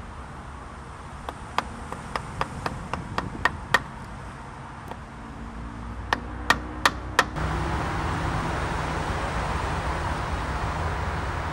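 Hammer tapping a long metal bolt through a timber windmill brace: a run of about ten light taps at roughly four a second, one more, then four harder blows. After the blows, steady wind and distant traffic rumble.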